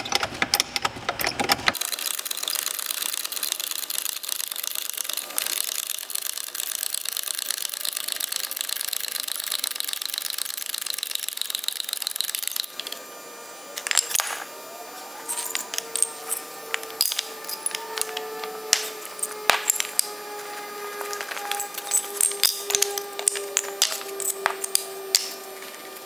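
Hydraulic bottle jack being pumped under a locomotive truck, with sharp metallic clicks and taps from the jack handle and steel parts. A dense hiss fills the first ten seconds or so and stops abruptly, and a faint steady tone runs under the clicks after that.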